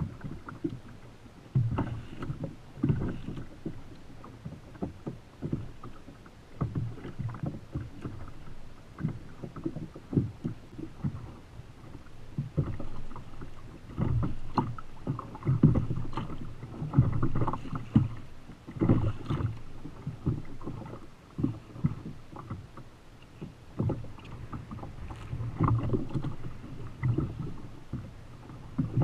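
Choppy sea slapping and splashing against the hull of a plastic sit-on-top fishing kayak in irregular bursts, with some wind.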